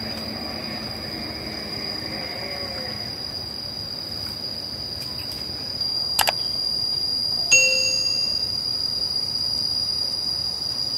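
Steady, high-pitched trilling of insects. A sharp click comes about six seconds in, and a short bright ding about a second and a half later: the sound effect of an on-screen subscribe button.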